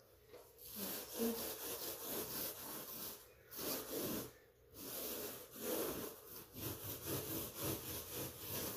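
A hand scraping tool being drawn back and forth along a crack in a wall, a rasping scratch in quick repeated strokes with short pauses a little past three seconds and at about four and a half seconds.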